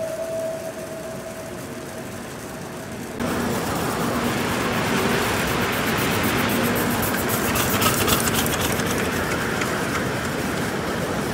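Large-scale garden railway train passing close by: wheels rumbling on the track with a fast run of clicks, starting abruptly about three seconds in. Before it, a quieter background with a faint steady tone that fades out.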